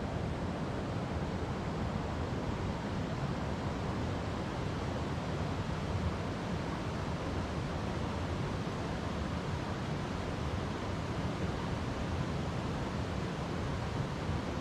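River water flowing over rocks: a steady, unbroken rush, deepest in the low end.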